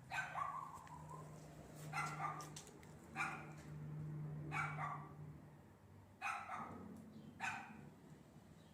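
A dog barking: six short single barks spaced one to two seconds apart, over a faint steady low hum.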